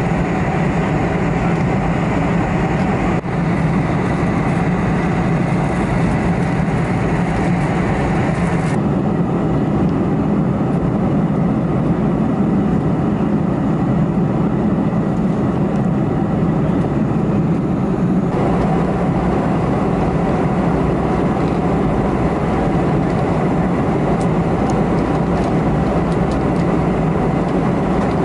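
Steady cabin noise of a Boeing 747-400 in cruise: the even, deep rush of engines and airflow heard from a window seat. The upper hiss drops suddenly about nine seconds in and shifts again about eighteen seconds in.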